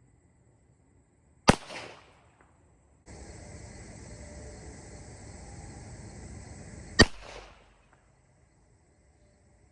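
Two shots from a Rock Island Armory Model 200 .38 Special revolver firing 158-grain full metal jacket rounds, about five and a half seconds apart, each with a short echo. A steady hiss starts about three seconds in and stops at the second shot.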